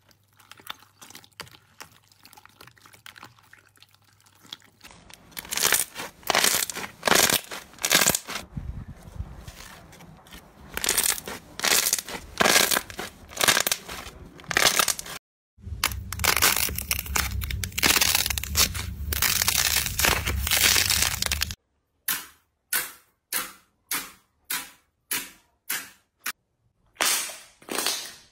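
Hands squeezing and pressing slime, clip after clip, with crackling and crunching; near the end, clear slime pressed with a cup gives a regular run of sharp pops, about one and a half a second.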